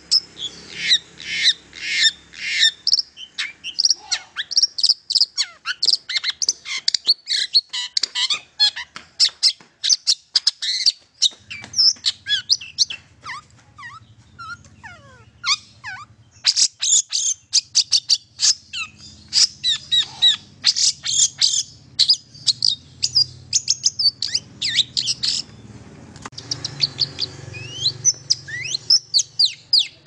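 Long-tailed shrike singing: a fast, nearly unbroken chatter of short sharp notes and quick whistled glides, with brief thinner stretches.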